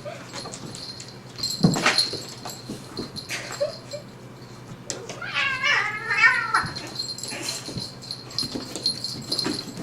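A domestic cat giving one drawn-out, wavering meow about five seconds in, with a sharp knock shortly after the start.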